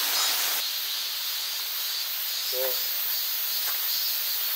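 Cicadas singing in a steady, unbroken chorus, with a short murmur from a person's voice about two and a half seconds in.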